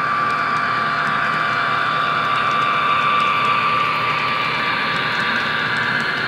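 Model Amtrak F40 and P40 diesel locomotives running by with a passenger train: a steady hum with a high whine over it and faint, evenly spaced light clicks.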